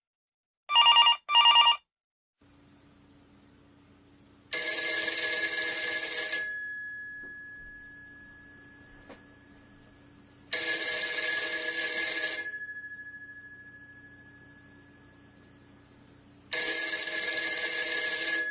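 Phone ringtones: a short double trill of two quick bursts, then a telephone-bell ringtone. After a faint hum, the bell rings in three bursts about six seconds apart, each ringing loudly for about two seconds and then fading slowly.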